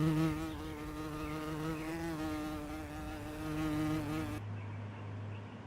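A steady buzzing drone that wavers slightly in pitch, cutting off abruptly a little over four seconds in, followed by a faint low hum.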